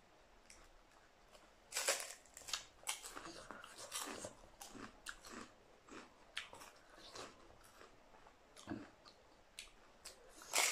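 Crunchy bites and chewing of raw cucumber, close to the microphone, as an irregular run of crisp crunches starting about two seconds in.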